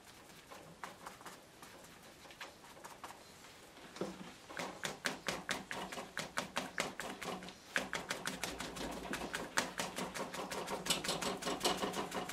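Sponge dabbed repeatedly onto paper clipped to a board, laying on acrylic paint: soft quick taps, sparse and faint at first, then from about four seconds in about four a second, growing denser toward the end.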